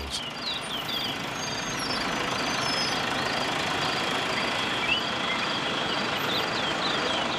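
A steady engine noise, building up about a second in and then holding level, with insects chirping faintly over it.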